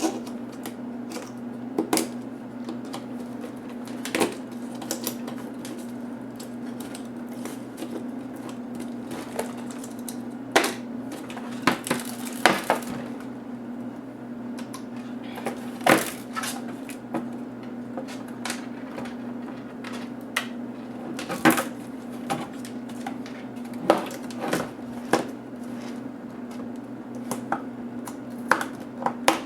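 Irregular sharp clicks, taps and light clatter of small plastic and metal HP DV4 laptop parts being handled and pried apart, over a steady low hum.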